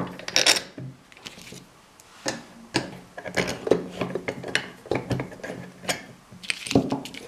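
Irregular metallic clicks, clinks and knocks of tools and the metal arm parts of an old Midgard articulated lamp being handled as it is unscrewed and taken apart, over a faint low hum.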